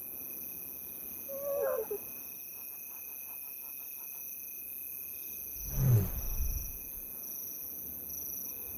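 Lionesses calling softly to their cubs: a short, wavering higher call about a second and a half in, then a louder, low call about six seconds in. These are contact calls telling the cubs it is safe to come out.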